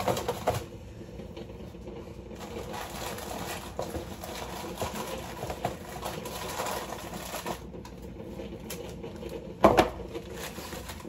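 Coffee pods rattling and rustling in a plastic bin as it is rummaged through, with small clicks and one louder knock near the end.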